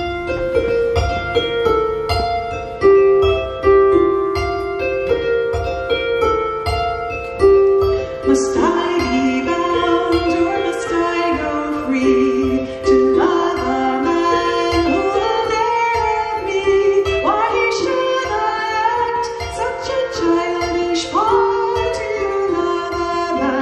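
A kora, the West African 21-string harp-lute, and a harp playing a folk tune together in plucked notes. The playing becomes fuller and brighter about eight seconds in.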